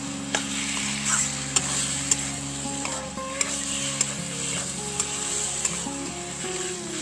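Metal spatula stirring and scraping a thick mash of taro leaves and chickpeas around a kadai, over a steady frying sizzle. Sharp scrapes against the pan come about once a second.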